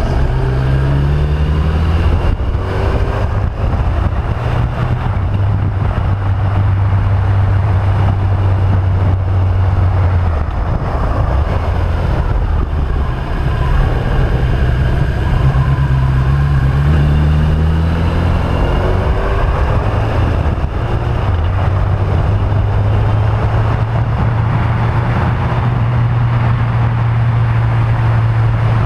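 Motorcycle engine running under way through a run of bends, holding a steady pitch for stretches and rising in pitch as the bike accelerates out of the curves, near the start and again about two-thirds of the way through. Air rushes over the microphone throughout.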